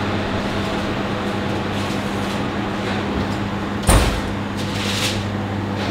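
Steady hum of a professional kitchen's ventilation. About four seconds in comes a sharp metallic clunk as the combi oven door is opened, and a second later a short scrape as a baking tray is slid out.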